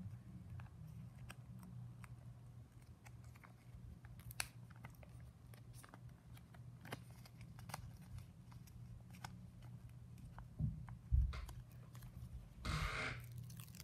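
Faint off-camera handling noises: scattered small clicks over a low steady hum, with a couple of soft thumps and a short rustle of paper or plastic near the end.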